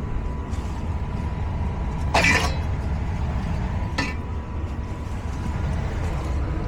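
A steady low rumble, with one short metallic clatter about two seconds in and a lighter click about four seconds in.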